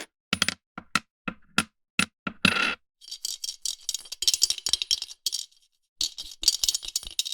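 Coin sound effects: about eight sharp separate clicks of coins tapped or set down one after another, then two bursts of coins rattling and jingling together, each a second or two long, with dead silence between the clips.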